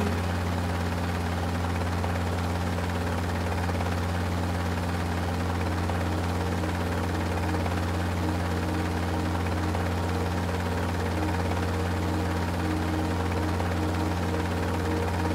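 Steady low mechanical drone of a rotor aircraft, unchanging in pitch and level.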